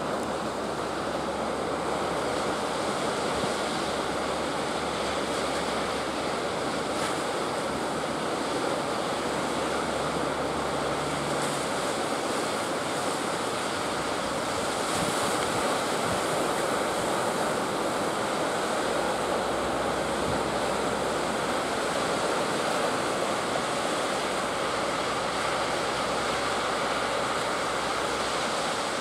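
Ocean surf breaking and washing steadily, with wind buffeting the microphone.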